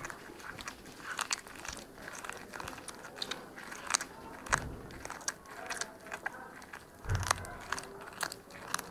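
Cat chewing raw chicken feet, the bones cracking and crunching in sharp, irregular clicks, with a couple of dull low thumps.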